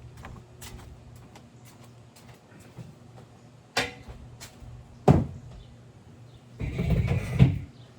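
Patio furniture being moved around on a deck: two sharp knocks about four and five seconds in, then a rough scraping drag near the end.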